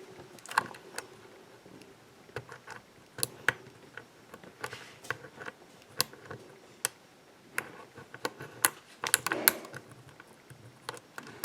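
Hook pick working the pins of a pin-tumbler lock cylinder under tension: faint, irregular small metallic clicks and ticks as serrated and spool pins are probed and set.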